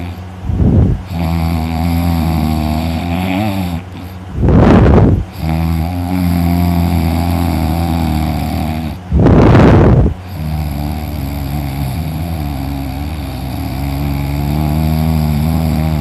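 A person snoring heavily during deep sleep: three loud, rasping snores come about four and a half seconds apart, about half a second in, about four and a half seconds in and about nine seconds in. They sound over a steady low humming drone.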